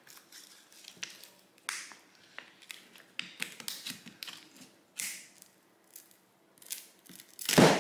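Thin metal pry tool scraping and ticking along the edge of a Xiaomi Mi 9T's cracked glass back cover as it is worked loose from its softened adhesive: a series of short, irregular scrapes and clicks, with one louder sudden noise near the end.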